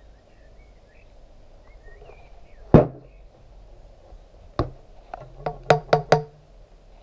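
Motorcycle front fork tube being knocked: a single sharp metallic hit, another about two seconds later, then a quick run of five knocks, each with a short ring from the hollow tube. Faint bird chirps sound in the first seconds.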